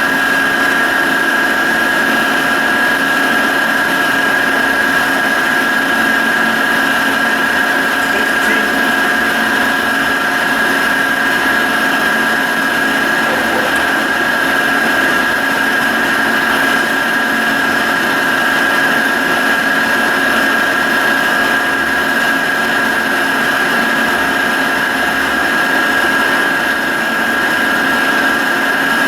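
Carlton radial arm drill press running steadily under power, with a constant high whine over the machine's hum.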